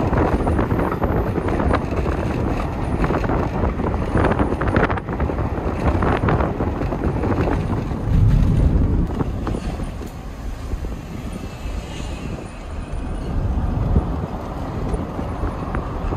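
Road and engine noise of a moving car, a steady rumble that rises and falls, with wind buffeting the microphone at the side window.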